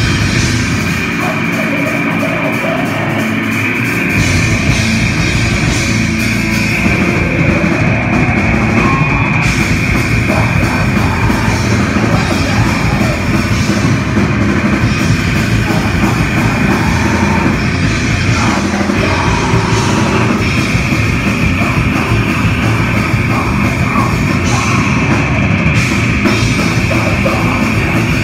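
Live heavy metal band playing loud and dense, with electric guitars, bass guitar and drum kit. The deepest bass drops out for a few seconds near the start, and the full band comes back in about four seconds in.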